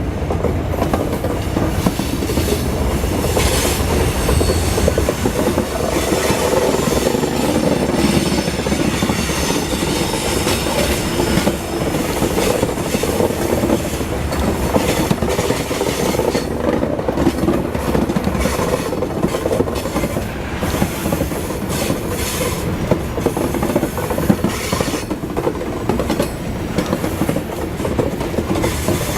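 Freight train of grain cars rolling past: a steady rumble and clatter of wheels over the rail joints, with some wheel squeal, and a heavier low rumble in the first few seconds.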